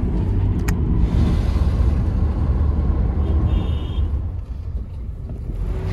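Steady low rumble of a moving car, heard from inside its cabin, easing slightly near the end.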